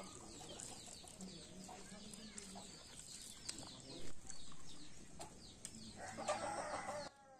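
Small birds chirping: a steady, busy run of short high chirps, with a louder, fuller sound about six seconds in before the sound drops away abruptly just before the end.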